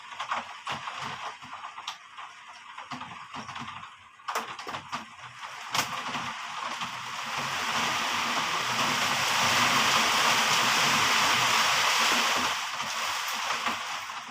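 Heavy rain: scattered drops and splashes at first, then the downpour swells into a dense, loud hiss for several seconds and eases again near the end.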